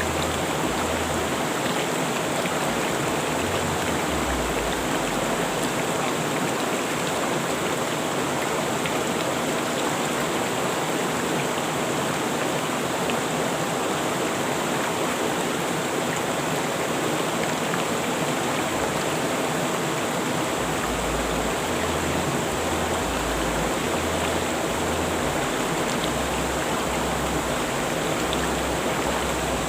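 Rushing river water flowing in a steady, unbroken rush with no change in level.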